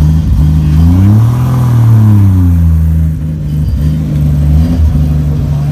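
Car engine idling, revved once about a second in: the pitch rises, then sinks back to a steady idle.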